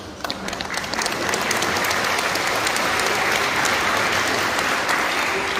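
A crowd clapping in a large hall. The applause starts just after the beginning, builds within the first second, then goes on steadily.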